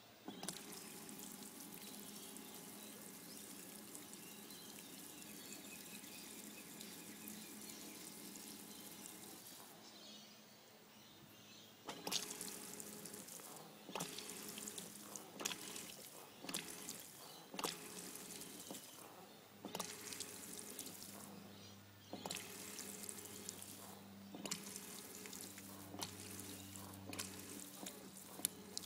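Water running out of a sea kayak's pump outlet, which has a flexible plastic flap glued into it. It flows steadily for about ten seconds, then comes in uneven spurts with sharp knocks every second or two.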